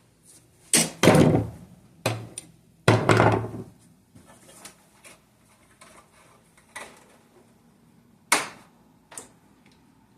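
Several loud clunks and knocks, as of metal tools and car parts being handled and set down, with a couple of longer ringing clatters early on and lighter ticks between.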